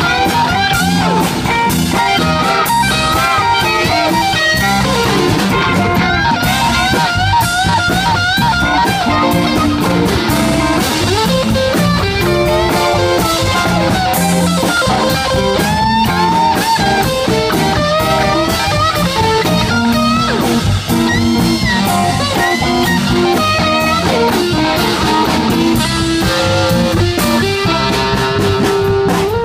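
Live blues band playing an instrumental passage: electric guitars over a drum kit, with a lead guitar line of bent, wavering notes.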